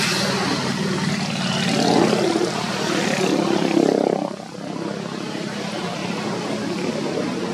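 A steady engine drone, like motor traffic, louder in the middle and dropping back about four and a half seconds in.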